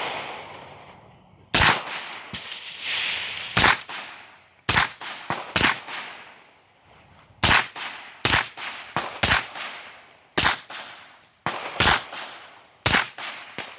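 9mm pistol fitted with a 45 Tirant suppressor, firing 115-grain supersonic rounds. About a dozen sharp, suppressed shots come at an uneven pace, roughly a second apart, each trailing off in a short echo.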